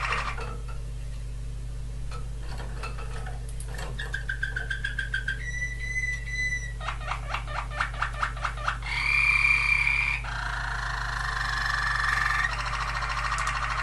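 Waterslager (Malinois) song canary singing its tours in turn: fast clicking, a held pure whistle, a run of quickly repeated short notes, a louder, higher whistle, then a long rolling trill.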